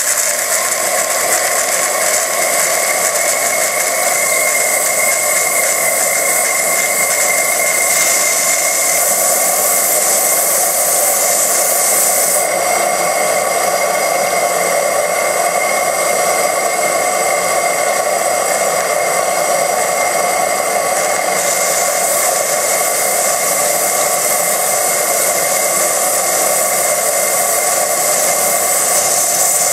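Four-cylinder oscillating live steam engine running steadily on steam, giving a continuous whirring hiss of exhaust steam over the motion of its running gear.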